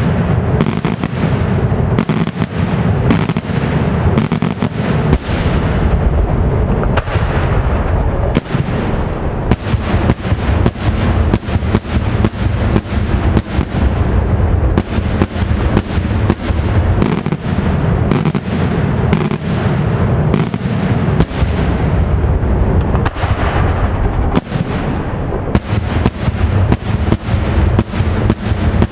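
Daytime fireworks barrage: a dense, unbroken run of aerial shell bursts, several loud bangs a second over a continuous rumble.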